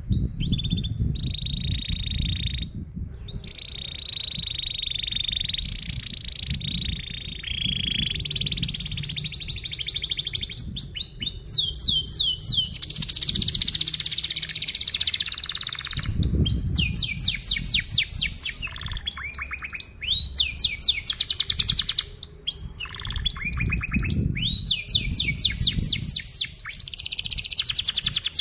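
Domestic canary singing a long, unbroken song: tight rolled trills at first, then a high buzzy roll, then rapid runs of short downward-sweeping chirps alternating with rolls.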